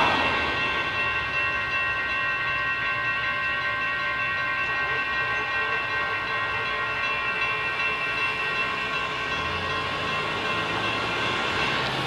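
Several electronic railroad-crossing bells ringing together as a steady chime. In the first moment the noise of the departing light rail train dies away, and a car's low rumble joins near the end.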